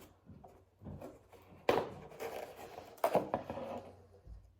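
Handling noises as a cup and its packaging are picked up and turned over: two sharp knocks about a second and a half apart, with smaller knocks and light rustling around them.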